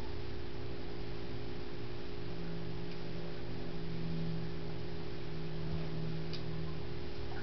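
Small electric pump of a pet water fountain humming steadily, with water running over a faint even hiss and a couple of faint ticks.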